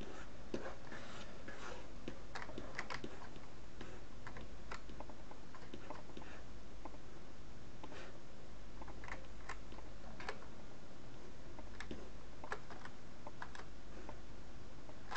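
Scattered clicks of a computer keyboard and mouse, coming in short irregular runs as the user works, over a steady low hum.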